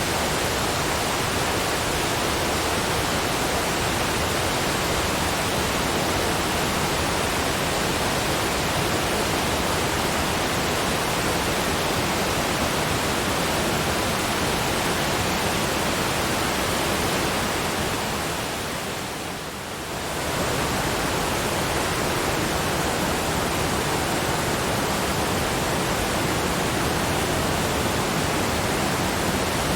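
Waterfall's steady rush of falling water, an even wash of noise, briefly dipping in loudness about two-thirds of the way through.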